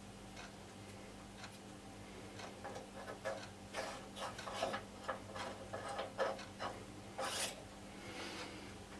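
Irregular scraping and clicking strokes of hand work on a small part being taken down to fit. The strokes come thickest from about three to seven seconds in and end in one longer scrape.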